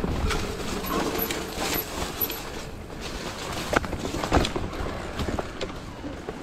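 Electric mountain bike riding over a rough dirt singletrack: continuous rattle and clatter of the bike over the ground, with two sharper knocks a little past the middle.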